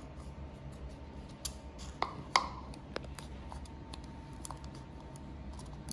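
Scattered light clicks and taps of a hard plastic toy egg capsule being handled on a stone countertop, with a few sharper knocks about two to three seconds in.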